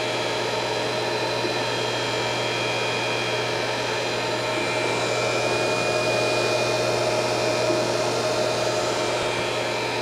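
1979 Bryant Universal internal grinder running with its hydraulic pump, grinding-wheel spindle and headstock all turning and the power feed just engaged: a steady motor hum and whine. It grows a little louder, with a higher whine, about halfway through.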